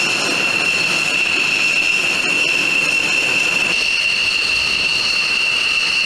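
Jet engine on a flight line: a steady high-pitched turbine whine over a continuous rushing noise.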